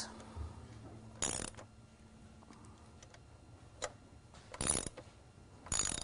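Ratchet wrench clicking in three short bursts as the motorcycle's front fork pinch bolts are tightened, with one faint single click between.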